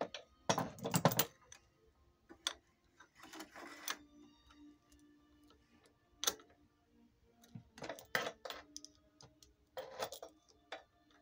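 Metal motorcycle roller drive chain clinking and rattling as it is handled by hand, in several short bursts with single clicks between, while two links are taken out to remove slack.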